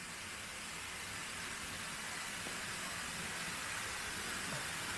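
Waterfall streaming down a rock face and splashing onto rocks: a steady rushing hiss that grows slowly louder.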